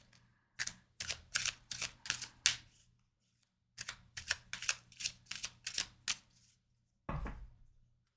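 Oracle cards being shuffled by hand: two runs of quick, crisp slaps of card against card, about three a second, then a heavier knock about 7 seconds in, typical of the deck being set down or tapped on the table.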